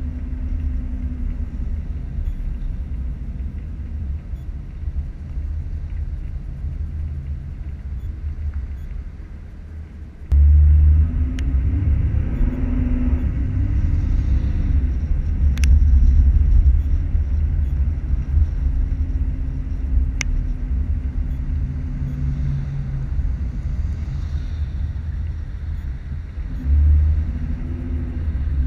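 Car driving along a town street: a steady deep rumble of engine and road noise that jumps louder about ten seconds in, with an engine hum shifting in pitch as it goes. Three sharp clicks are heard in the middle.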